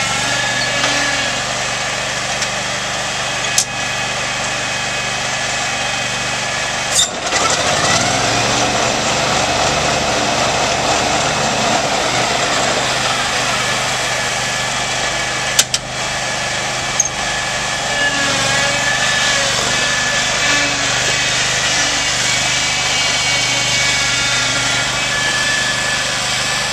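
Scag Turf Tiger commercial zero-turn mower's engine running steadily while the mower is driven, its note shifting about seven seconds in, with a few brief sharp knocks.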